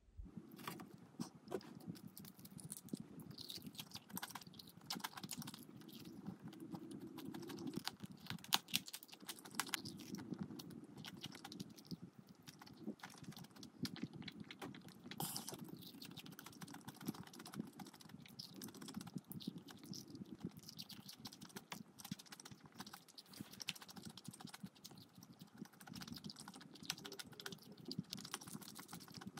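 Close-up chewing of crispy fried food: a faint, steady run of small crunches and crackles.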